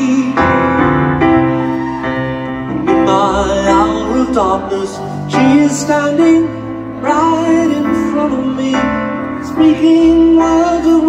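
Live piano playing slow sustained chords, with a voice singing over it through a concert PA.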